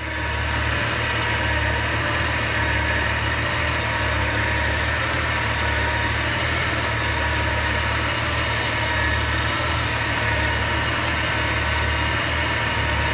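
Jeep Grand Cherokee WJ engine idling steadily.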